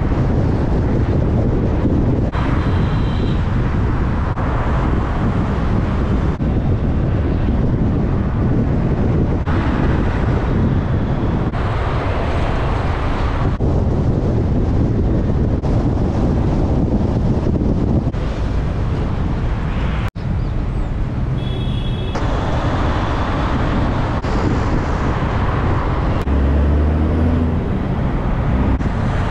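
Wind rushing over the microphone and the low rumble of a car driving at speed on an open road, with traffic noise. The sound shifts abruptly every few seconds where short clips are cut together.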